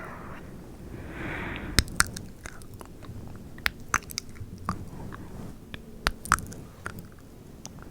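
Close-miked ASMR mouth sounds: irregular wet clicks and smacks of the lips and tongue, with a soft breathy hiss about a second in.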